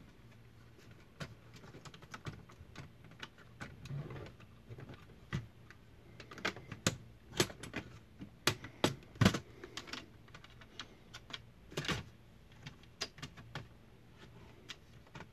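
Irregular plastic and metal clicks and knocks from a Dell Inspiron 3521 laptop's display assembly being handled and seated back onto its base, the hinges and lid tapping against the chassis. The clicks come sparse at first and gather into a louder cluster past the middle.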